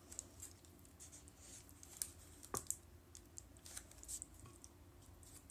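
Wooden spoon spreading and pressing a soft grated-apple topping in a parchment-lined glass baking dish: faint scraping with scattered light clicks, two sharper clicks a little after two seconds in.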